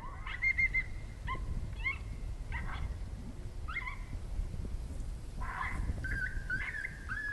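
Electronic predator call playing a coyote pup distress sound: short, high whimpering yelps that rise and fall, coming more often near the end. Wind rumbles on the microphone underneath.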